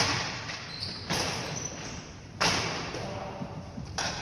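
Sharp cracks and knocks of ball hockey play, four in all, each ringing on in a large echoing hall, with voices in the background.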